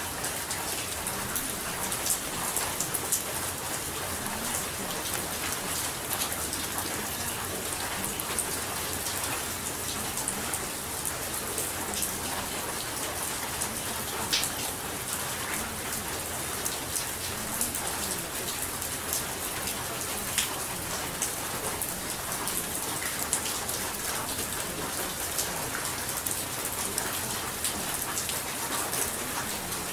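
Steady rain falling on a surface, with scattered sharp drop ticks over an even hiss.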